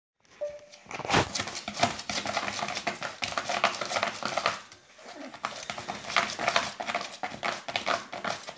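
Pug puppy scrabbling at a cardboard box: a rapid run of claw scratches and taps on the cardboard and floor, with a short lull about halfway.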